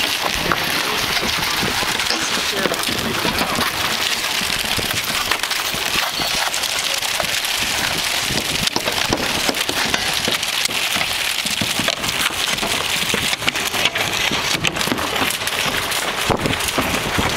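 Roof tear-off: old asphalt shingles being scraped up and dropped, a steady crackling, rattling clatter dotted with many small knocks.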